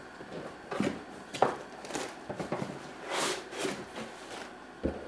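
Unpacking noises: a cardboard retail box being opened and an optical drive in white foam end caps lifted out, with scattered rustles, scrapes and light knocks.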